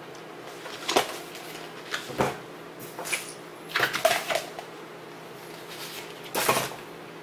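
A rolled paper poster being slid out of a cardboard tube and unrolled: a handful of short paper rustles and scrapes, with a light cardboard knock about two seconds in.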